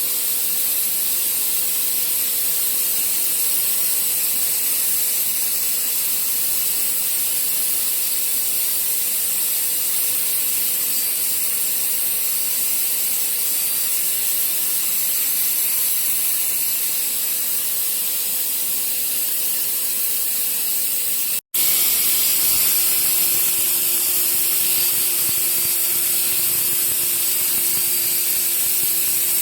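ATC CNC router running: a steady high hiss with a steady machine whine underneath. It breaks off for an instant about 21 seconds in, and the whine then sits lower.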